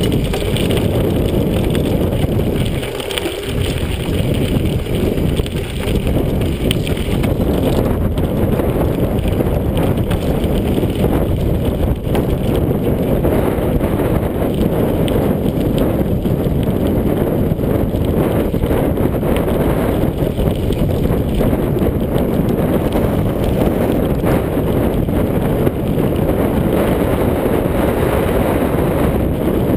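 Wind buffeting the microphone over the rumble of mountain bike tyres rolling down a rough dirt singletrack, with frequent knocks and rattles from the bike over bumps.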